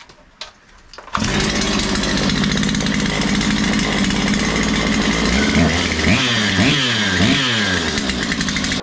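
Stihl 088 Magnum chainsaw engine, a big single-cylinder two-stroke running with no bar or chain fitted, bursts into life about a second in and runs steadily. In the last few seconds it is revved up and down several times. The engine is running well now that its ignition coil has been moved.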